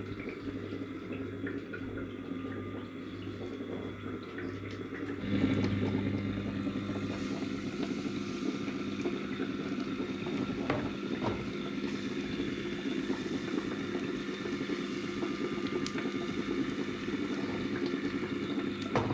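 Pancake batter sizzling in a frying pan on a biogas-fed gas burner, over a steady hum, with a few clinks of a ladle against the batter bowl. A quieter steady hum fills the first five seconds before the louder frying sound comes in.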